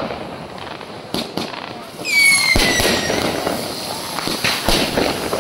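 Fireworks going off: a string of sharp bangs, with a whistling firework about two seconds in whose whistle slides down in pitch over about a second.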